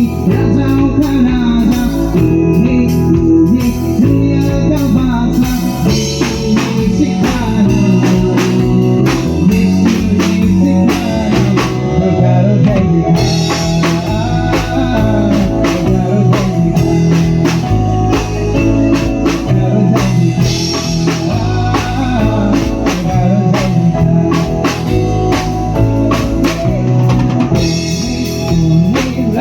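A band playing with drum kit, bass and guitar. The drums pick up about six seconds in and keep a steady beat.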